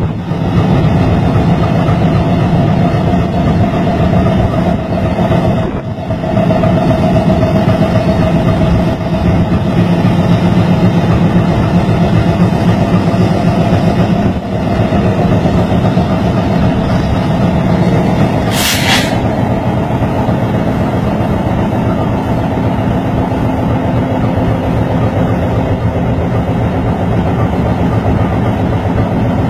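Diesel locomotive engine running steadily at idle as the locomotive turns on a turntable, a continuous deep hum. A short hiss sounds once, a little under two-thirds of the way through.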